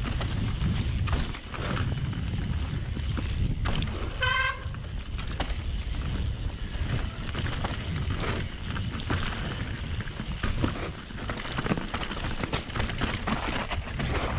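Mountain bike riding over a dirt trail: steady wind and tyre noise with frequent knocks and rattles from the bike over rough ground. About four seconds in there is a brief pitched toot.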